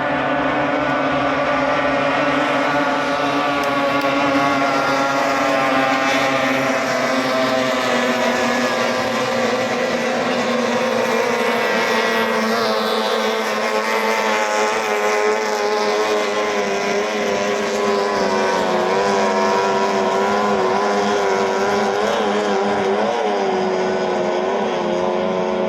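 18 hp outboard motors of racing speedboats running hard: a loud, steady engine drone whose pitch wavers slightly now and then.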